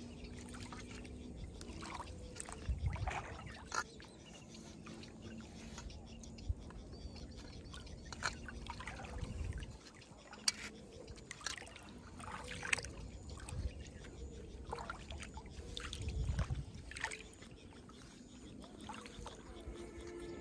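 Pond water splashing and trickling as hands dip and work a steel plate at the water's edge, with scattered small clicks. Two dull low rumbles, about three seconds in and again past the middle, are the loudest moments.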